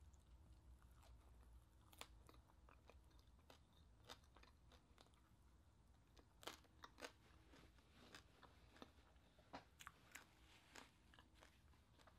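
Person chewing crispy lechon skin (roast pig skin) close to the microphone: quiet chewing with sharp, irregular crunches about once a second.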